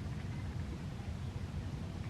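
Low, uneven rumble of wind buffeting the microphone outdoors; no siren tone is sounding.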